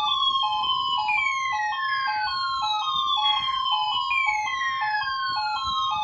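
Several weather alert radios sounding their alarms together, triggered by a NOAA Weather Radio required weekly test. A two-tone warble switches between two pitches several times a second, a falling siren-like sweep starts again about every three seconds, and short high beeps run over them at a steady level.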